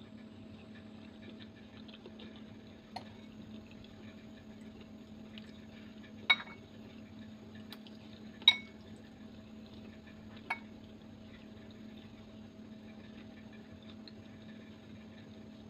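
A metal fork clinks against a ceramic bowl four times, with short ringing clinks; the two in the middle are the loudest. A steady low hum runs underneath.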